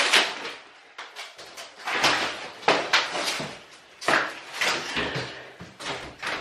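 A brittle brown flooring sheet being ripped up off old wooden floorboards: an irregular run of cracks, snaps and knocks, several in quick succession, with quieter gaps between.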